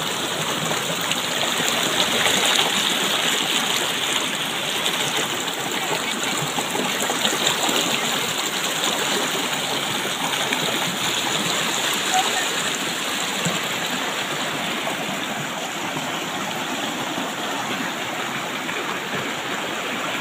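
River water rushing over and around rocks in shallow rapids below a weir: a steady, loud rush of fast-flowing water.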